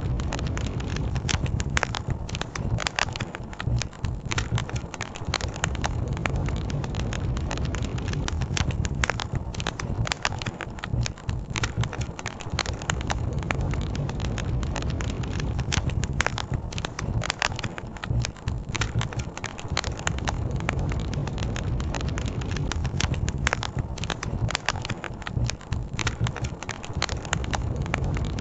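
Campfire crackling steadily with many sharp, irregular pops and snaps, over a continuous low rush of flowing river water.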